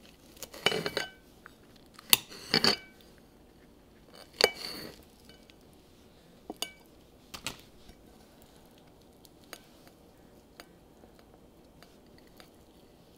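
Cutlery clinking and knocking against a plate, as when a knife cuts a filled wrap into pieces: three clusters of clinks with a brief ring in the first five seconds, then a few lighter single clicks.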